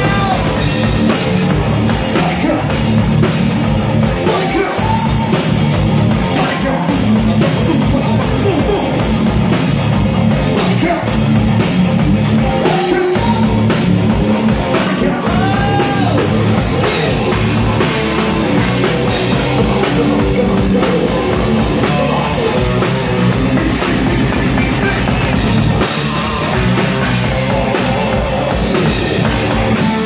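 Live hard rock band playing loud: electric guitars and a drum kit, with a singer's voice on top, heard close to the stage.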